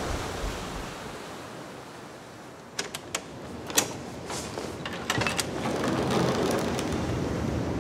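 Sea surf and wind: a steady wash that fades, then swells again about five seconds in. Between about three and five and a half seconds in, a scatter of sharp clicks cuts through it, the loudest near four seconds in.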